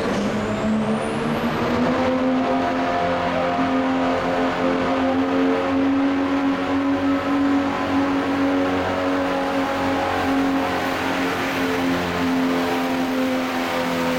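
Diesel Dodge pickup's Cummins engine at full throttle pulling a weight-transfer sled: the engine revs up over about the first second and a half, then holds high and steady under load. A thin high whine climbs during the first two seconds.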